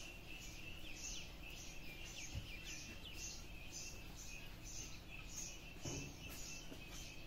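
Steady outdoor chirping: a high-pitched chirp repeating evenly about twice a second over a continuous higher trill, with a few quick falling chirps.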